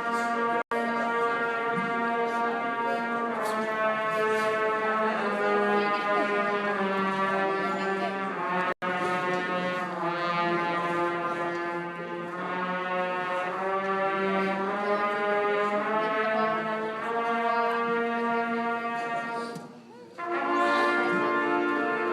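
Brass section of a band playing loud sustained chords, each held a second or two before moving to the next, with a short break about twenty seconds in.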